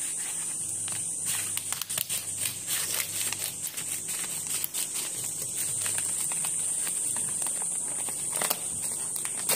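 Scissors snipping through a plastic courier mailer bag, a quick run of sharp cuts and crinkles, then the plastic crinkling as the bag is pulled open near the end, over a steady high hiss.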